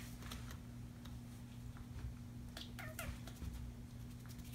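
A young kitten mewing, two short high mews a little past the middle, with faint light clicks of a plastic spring toy being batted on a tile floor.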